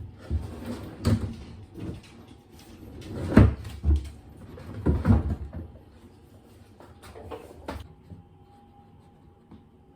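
A storage drawer on slide rails being pulled open and pushed shut, with a series of knocks and clatters, the loudest around the middle. It goes quiet for the last couple of seconds.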